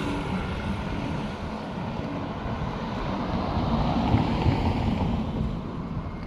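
A steady rush of wind on the microphone, with a motor's low hum fading away early and coming back faintly in the middle.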